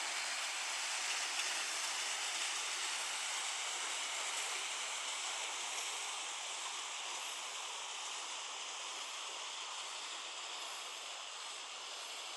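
Steady rush of a small hill stream running down a rocky gully, slowly growing fainter and cutting off abruptly at the end.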